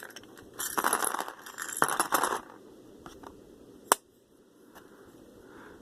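Packaging being opened and handled by hand: about two seconds of rustling and crinkling bursts, then one sharp click of a small hard object near the end.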